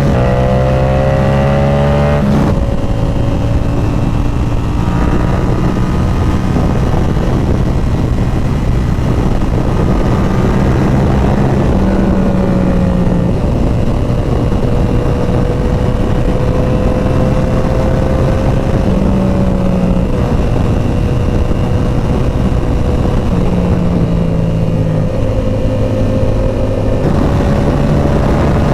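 Inline-four sport motorcycle engine at highway speed, heard over a steady rush of wind. Its pitch rises under throttle, drops suddenly about two and a half seconds in, then holds a steady cruise with slight rises and falls in revs.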